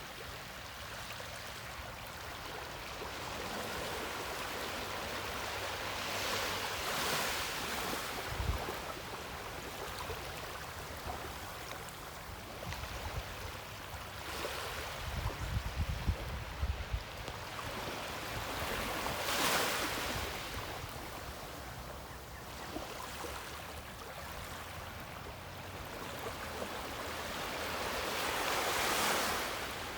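Ocean waves washing ashore: a steady rush of surf that swells into a breaking wave about every ten to twelve seconds, three times. Brief low rumbles of wind on the microphone come in around the middle.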